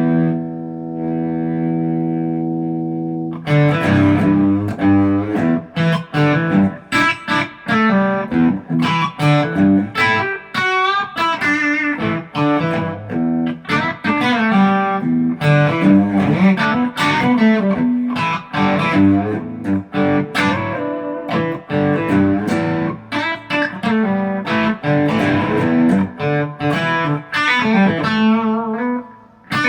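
ESP LTD EC-256 electric guitar played through an amp. One chord rings out for about three seconds, then the playing turns to a fast run of picked single-note lines and short chords.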